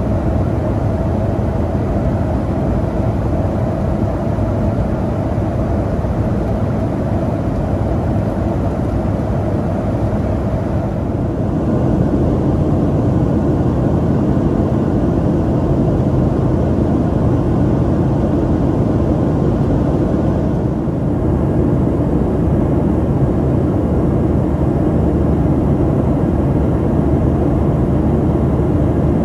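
Steady cabin noise of a Boeing 737-400 in cruise flight: the even drone of its CFM56-3 turbofans and the rush of air along the fuselage. It grows slightly louder and fuller about eleven seconds in.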